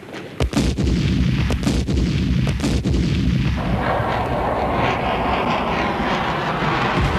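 Loud battle sound of artillery and gunfire: a heavy rumble with a quick run of sharp shots in the first three seconds, then the rushing noise of a jet aircraft takes over from about three and a half seconds in.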